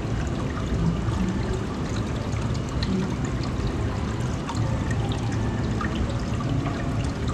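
Water pouring and trickling steadily into a shallow aquarium touch-pool tank, with a few faint ticks over it.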